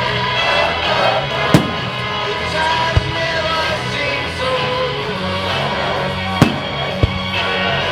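Music playing continuously, punctuated by four sharp firework bangs: two loud ones, about 1.5 and 6.5 seconds in, each followed shortly by a duller thud.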